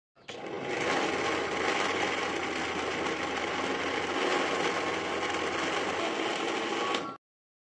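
Countertop blender motor running at speed, grinding peeled tomatoes and a little water into a purée. It starts just after the beginning and cuts off suddenly about seven seconds in.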